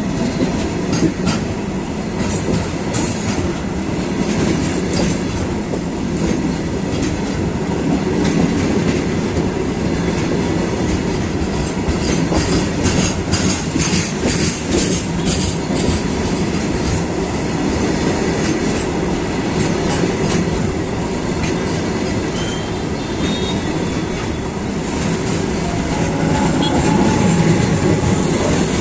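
Freight train's steel hopper wagons rolling past close by: a steady loud rumble of wheels on the rails, with repeated clicks as the wheels cross rail joints, in clusters about 1–3 s in, around the middle and near the end.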